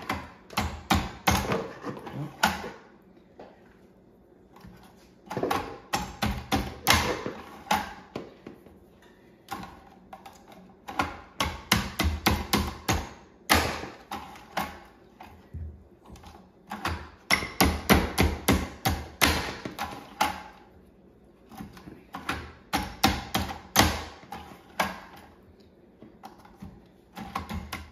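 Lever-action French fry cutter pushing red potatoes through its blade grid, in repeated bursts of sharp clicks, clacks and knocks a few seconds apart as the handle is pulled down and the cut wedges drop into a plastic bowl.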